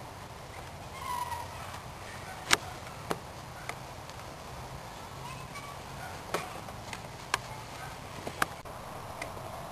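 A handful of short, sharp clicks or taps at irregular intervals, over a faint steady low background.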